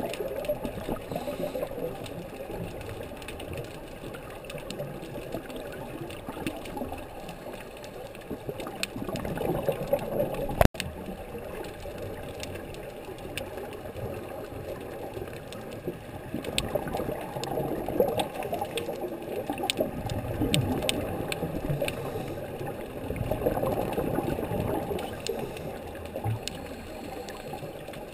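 Underwater ambience recorded below the surface: a muffled wash of moving water that swells and eases, with scattered faint clicks and one sharp click about ten seconds in.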